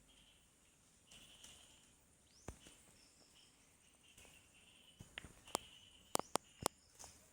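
Quiet rural ambience with faint bird chirps, then a handful of sharp clicks in the last couple of seconds.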